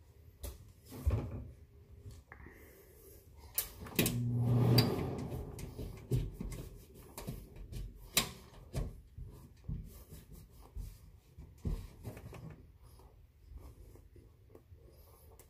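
A person biting and chewing broccoli, with crunching and scattered knocks of handling, and a louder knock about four seconds in.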